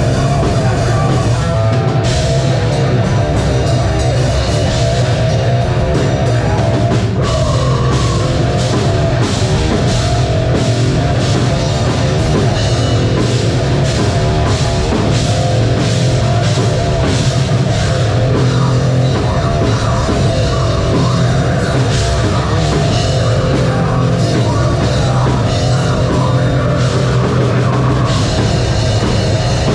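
A live metal band playing loud, with distorted guitars, bass and a drum kit. The drums hit fast and dense from about two seconds in until near the end.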